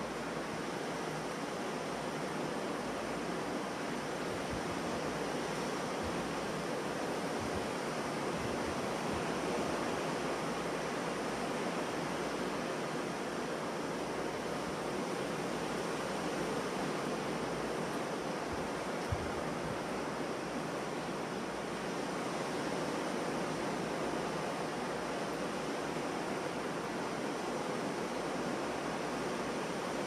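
Ocean surf breaking on a beach, a continuous wash of waves that swells and eases gently.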